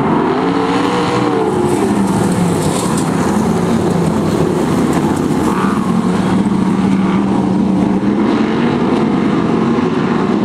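Several speedway hot rod engines racing together on a dirt track. A loud, steady din, with engine notes rising and falling as the cars accelerate and back off.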